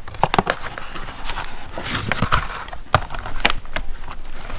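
Hands working at a cardboard box of ratchet straps, pulling a long wire twist tie free. Irregular clicks, knocks and scraping of cardboard and packaging.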